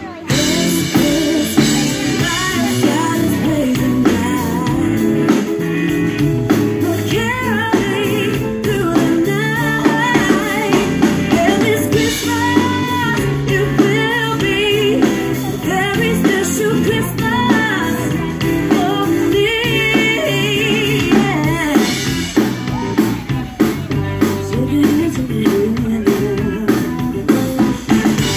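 Live amplified band playing: electric guitars, keyboard and drum kit, with a lead voice singing over them. The singing stops about three-quarters of the way through and the band plays on.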